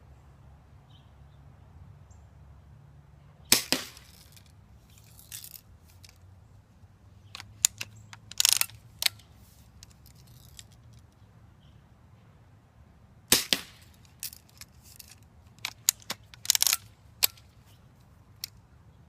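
BB gun being shot several times, a string of sharp cracks and clicks. The two loudest come about three and a half seconds in and again about thirteen seconds in, with smaller groups of clicks between and after them.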